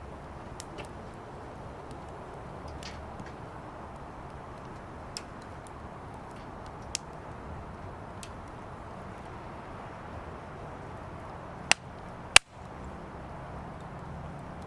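Firewood burning in a fire pit: a steady hiss with scattered sharp crackles, and two louder pops close together near the end.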